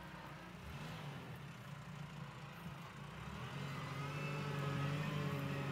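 Tractor engine running steadily, getting louder about three and a half seconds in.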